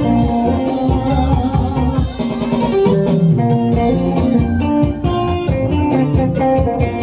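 Live dance band playing: electric guitar melody over bass and a steady beat.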